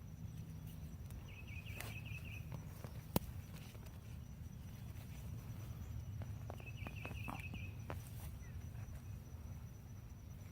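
An insect calling in short pulsed buzzing trills of about a second, twice, over faint knocks and scrapes of digging in garden soil, with one sharp knock about three seconds in.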